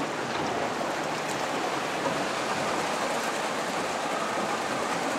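Steady rushing and splashing of seawater against and around a small open boat.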